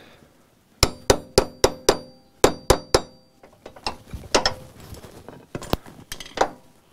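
Steel tool tapping the rope-anchor wedge down into a Warn winch drum: a quick run of about nine sharp metal-on-metal taps, each ringing briefly, then a few lighter taps. The wedge is being seated to lock the synthetic winch rope's end flush in the drum.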